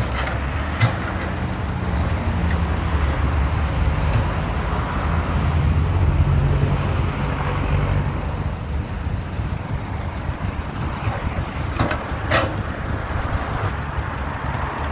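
Caterpillar 320 hydraulic excavator's diesel engine running steadily while it works, growing louder for a few seconds in the middle. Two sharp knocks come close together near the end.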